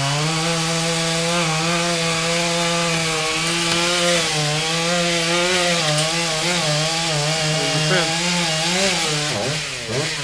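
Two-stroke chainsaw running at high revs and cutting into wood, its engine pitch wavering as it bogs under load. Near the end the engine pitch drops and swoops up and down as it comes off the cut.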